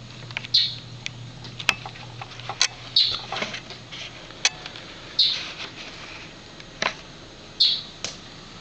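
A domestic cat chirping and chattering at a bird, mixed with the bird's own chirps: a run of short high calls and clicks, with a louder chirp every couple of seconds.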